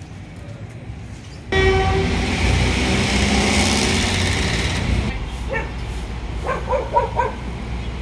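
A motor vehicle passing close by: a sudden loud rush of engine and road noise that starts about a second and a half in and fades after about three seconds. It is followed near the end by a dog barking several times in quick succession.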